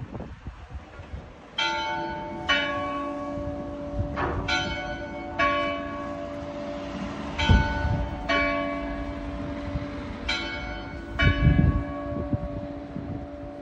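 Cathedral tower bells ringing the quarters: eight strikes in four two-note pairs, each pair about two seconds after the last and each stroke ringing on into the next. Twice, a gust of wind buffets the microphone.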